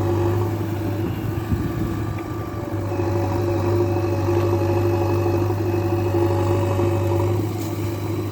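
Engine running steadily at an even pitch, a continuous low hum with a steady higher tone over it, dipping slightly in loudness about two seconds in.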